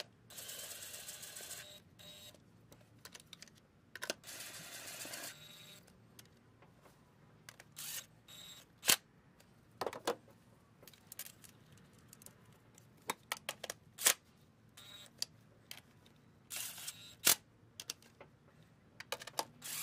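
A cordless driver runs in three short bursts, spinning the upper intake plenum bolts in, with sharp metallic clicks and clinks of bolts, washers and sockets between the runs.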